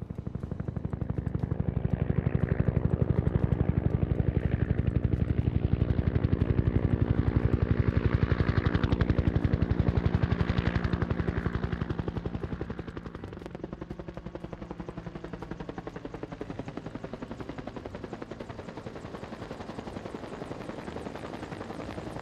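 Bell UH-1 "Huey" helicopter in flight with an external load on its long line: the two-blade main rotor beats out a rapid, even blade slap over the turbine drone. It is louder for about the first twelve seconds, then quieter and steady.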